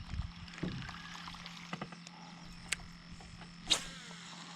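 A frog croaking briefly about half a second in, over a steady low hum, with a few sharp clicks later on.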